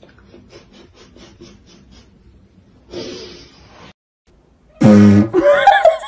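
A person's loud vocal outburst about five seconds in, breaking into laughter, after a few seconds of faint ticking.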